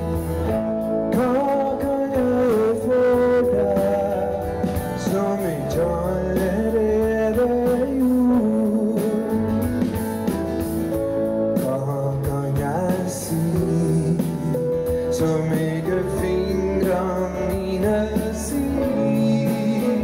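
A choir and band performing a song live: choir voices singing a melody over guitars, keyboard, bass and drums.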